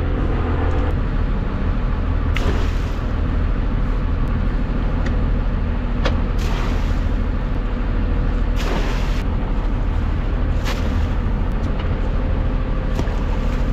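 A boat's motor running with a steady low rumble and a faint steady hum, broken by several brief rushes of noise.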